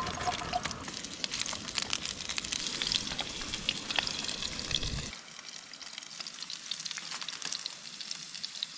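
Potatoes sizzling and crackling as they fry in a pan. A low rumble underneath cuts off suddenly about five seconds in, while the sizzling goes on.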